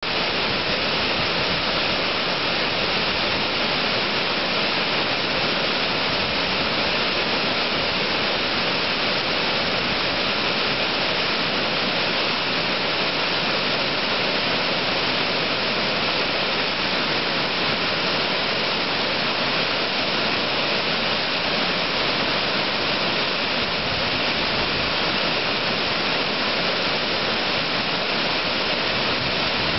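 Hurricane Falls, a large waterfall, pouring over rock into a pool in a steady, unbroken rush of water.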